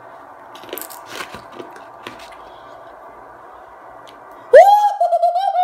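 Faint crunching of wasabi-coated dried green peas being chewed. About four and a half seconds in comes a loud, high, wavering vocal cry, held for over a second, as the wasabi's heat hits.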